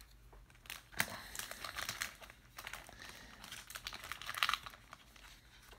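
Thin plastic crinkling and rustling in irregular crackly bursts, with small clicks, as a trading card is handled and slipped into a soft plastic penny sleeve.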